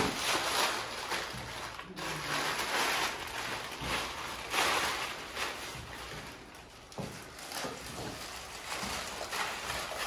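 Plastic sheeting rustling and crinkling as it is handled, in irregular surges, with a couple of sharp clicks, one right at the start and one about seven seconds in.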